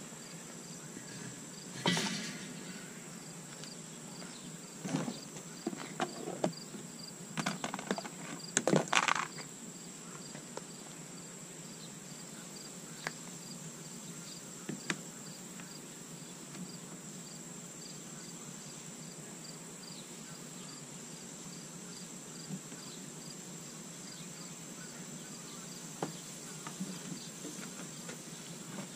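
Crickets chirping steadily, about two chirps a second, over a high, even insect drone. Early on, a few clattering knocks and scrapes as a log goes onto the charcoal and the metal grill grate is handled, the loudest a little before the tenth second, then a few light clicks as chicken is laid on the grate.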